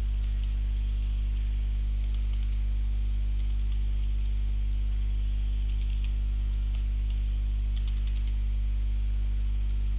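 Typing on a computer keyboard in short bursts of keystrokes with pauses between them, over a steady low electrical hum.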